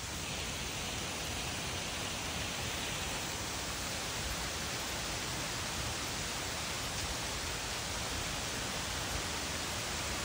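Stream water rushing steadily, an even hiss with no breaks.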